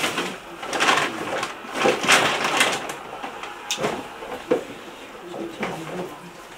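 Rustling, scraping and a few sharp clicks from a cardboard box and its contents being handled and opened by hand.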